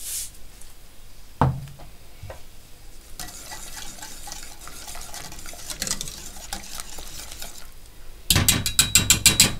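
Wire whisk stirring a thick sauce in a stainless steel pot: a single knock about a second and a half in, then a steady scraping swish with light clinks against the pot. Near the end the whisk is lifted and rapped quickly against the pot, about ten sharp metal clicks a second, the loudest part.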